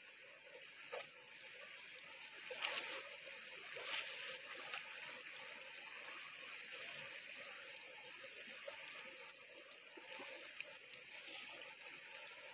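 Stream water running steadily, a faint even rush, with a few brief clicks about one, three and four seconds in.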